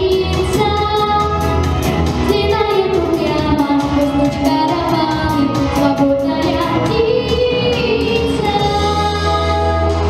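A young girl singing a pop ballad through a microphone and PA speakers, over instrumental accompaniment with a steady bass and an even beat.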